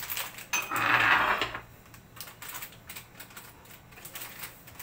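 Metal kitchenware and dishes being handled on a counter: scattered light clinks and clatter, with a brief hiss about a second in.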